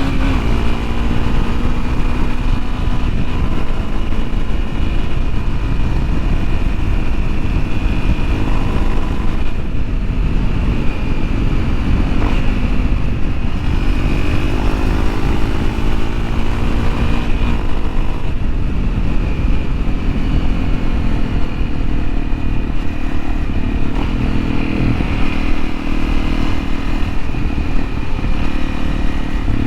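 Honda CRF250L's single-cylinder four-stroke engine running under way, its pitch rising and falling repeatedly with throttle and gear changes, over a steady low rushing noise.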